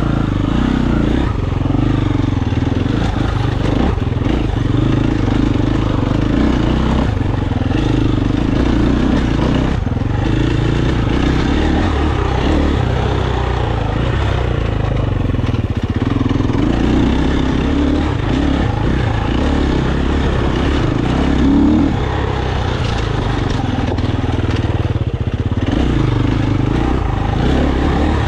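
KTM 350 enduro motorcycle's four-stroke single-cylinder engine running under constantly changing throttle, its note rising and falling.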